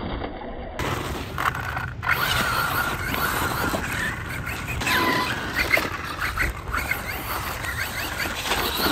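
Losi Baja Rey 2.0 RC desert truck driving hard over gravel and grass: a high electric motor whine that rises and falls, over the steady noise of tyres crunching and scraping across the ground. There is an abrupt jump in the sound near the start.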